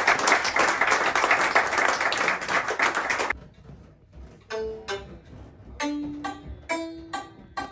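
Audience clapping fills the first three seconds and stops abruptly. Then a Swiss hammered dulcimer (Hackbrett) plays slow, widely spaced single notes that ring on.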